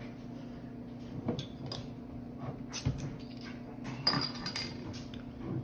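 Crown cap being pried off a bottle of strong stout: a few small metallic clicks and clinks, then a brief hiss about four seconds in as the cap comes off.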